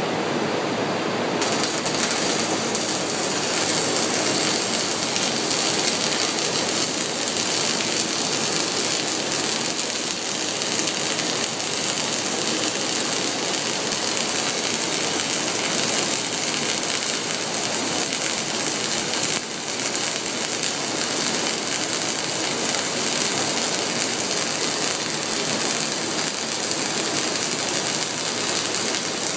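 Flux-core arc welding: the wire-feed welder's arc runs steadily as a continuous noisy sizzle, dipping briefly about two-thirds of the way through.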